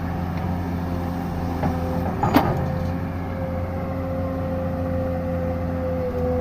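Excavator engine running steadily, with one sharp clank a little over two seconds in; after it a steady whine sits over the engine hum.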